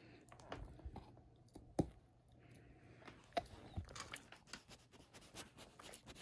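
A pit bull chewing and gnawing on a natural rubber dog toy: faint, irregular clicks and crunches, with one sharper click about two seconds in.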